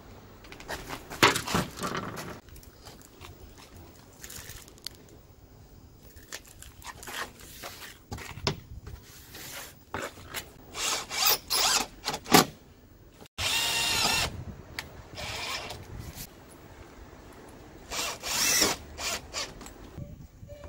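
Cordless drill running in several short bursts, fixing fiber cement siding trim around a window frame, with knocks and scraping of the boards being handled between the bursts.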